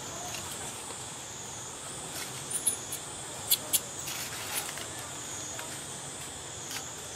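Steady high-pitched drone of insects, wavering slightly, with a few short sharp crackles clustered in the middle.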